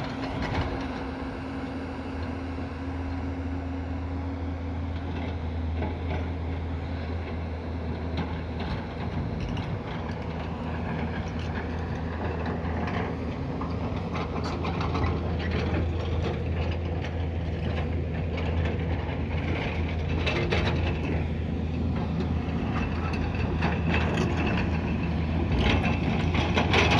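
An engine running steadily, with irregular mechanical clicks and knocks that become more frequent and louder in the second half.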